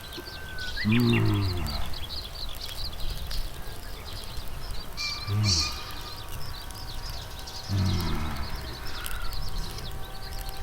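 A man's short, low vocal murmurs, three times, over constant chirping of small birds.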